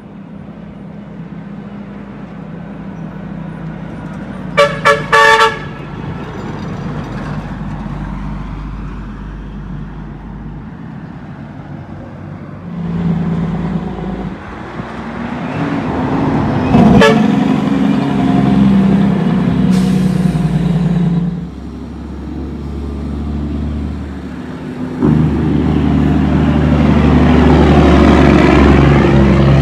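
Loaded diesel dump trucks passing on the road one after another, engines running and tyres on the road. A horn gives three quick toots about five seconds in. A truck passes close and loud near the end.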